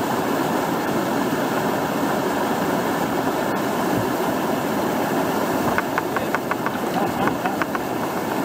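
Whitewater of a river surf wave rushing steadily. From about six seconds in, a run of light, quick ticks or small splashes joins in.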